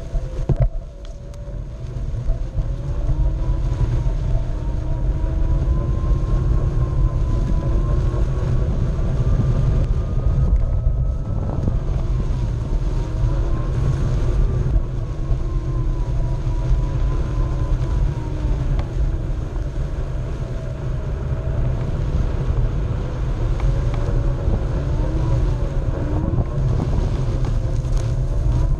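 Onewheel electric board's hub motor whining, its pitch slowly rising and falling as the speed changes. Under it runs a steady rumble of the tyre rolling over grass and wind on the microphone.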